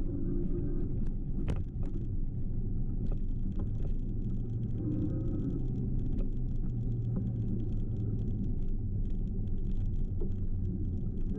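E-bike riding along a trail: a steady low rumble of tyres and rushing air, with the electric motor's faint whine rising now and then and a few sharp ticks.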